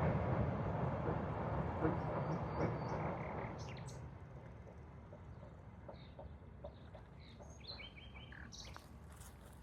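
A passing train's rumble fades away over the first few seconds. It gives way to small birds chirping and calling, more of them near the end.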